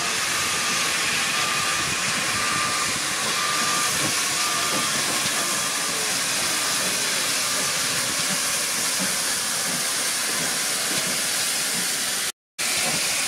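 Steam locomotive letting off steam in a steady, loud hiss, with a brief cut to silence near the end.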